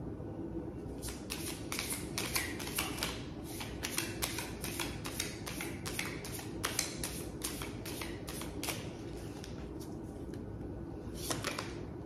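A tarot deck being shuffled by hand: a long run of quick, irregular clicks and snaps of card stock starting about a second in, easing off, then a few more near the end.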